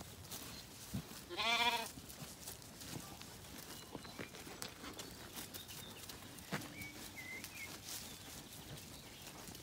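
A Zwartbles sheep bleats once, a wavering bleat of about half a second, about a second and a half in. Light clicks of hooves on the tarmac lane can be heard around it.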